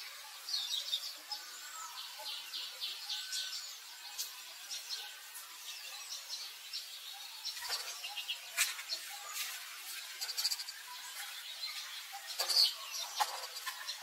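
Small birds chirping: many short, high chirps in quick runs, with a few sharp clicks, over a faint outdoor hiss.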